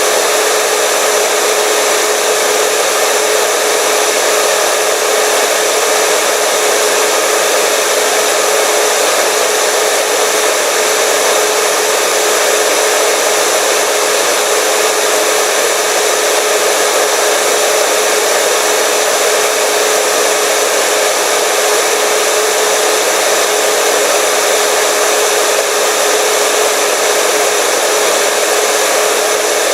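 Electric hair dryer running steadily: a constant rush of blown air with a steady motor whine, unchanging throughout.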